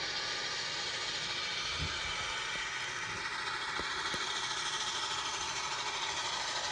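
Chesapeake & Ohio 4-8-4 steam locomotive No. 614 making a steady hissing running noise, with a couple of faint clicks about halfway through.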